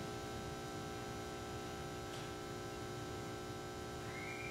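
Steady electrical mains hum with low room noise, with a faint tick about two seconds in and a faint thin high tone coming in near the end.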